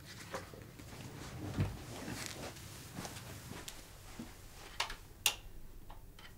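A hand handling a retro portable radio: soft knocks and a low thud about a second and a half in, then two sharp clicks near the end as the hand works the controls on top of the radio.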